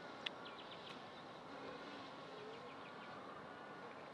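Faint outdoor ambience: a steady hiss with two short runs of rapid, insect-like ticking chirps and one sharp click just after the start.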